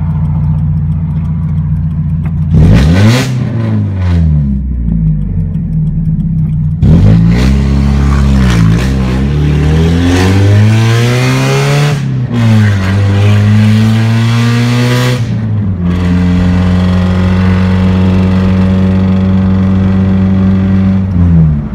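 Mazda Miata four-cylinder with a 2.5-inch straight-pipe exhaust and no muffler, heard loud from inside the cabin as the car pulls away. The revs climb and drop back at each gear change, then settle into a steady drone at cruise, with a brief dip near the end.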